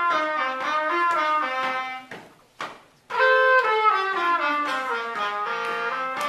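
Two saxophones playing a duet in two-part harmony: a phrase of stepwise, mostly descending notes, a break of about a second, then another phrase starting about three seconds in.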